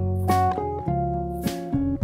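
Instrumental background music with a plucked-string melody and a light percussion hit twice.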